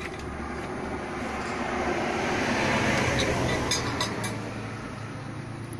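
A passing vehicle whose noise swells to a peak about three seconds in and then fades, over a steady low hum, with a few light clicks near the peak.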